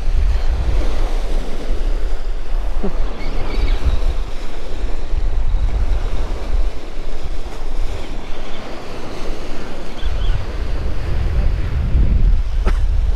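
Surf washing up on a sandy beach, a steady rush of waves, with wind buffeting the microphone in a low rumble.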